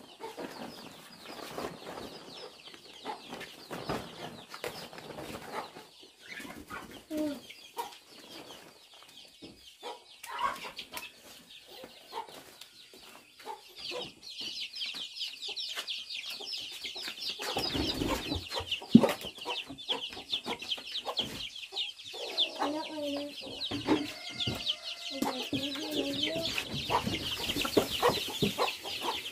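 Domestic chickens clucking, with rustling and knocks from a tub of leaves being handled and a sharp thump a little past the middle. From about halfway a dense, high-pitched chirping joins in and continues.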